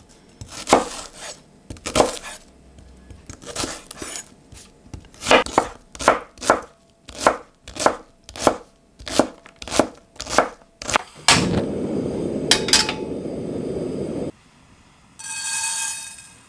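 Chef's knife slicing and then chopping shallot on a wooden cutting board: single knife strikes that settle into an even beat of about one and a half a second. Near the end comes a steady low rushing noise for about three seconds, which stops abruptly, then a short high ringing sound.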